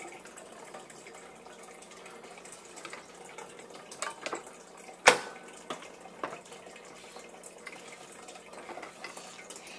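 Scattered light clicks and knocks of hard plastic toy pieces, a dinosaur figure and its nest base, being handled on a plastic high-chair tray, the sharpest knock about five seconds in. Under them runs a steady faint water trickle, like an aquarium filter.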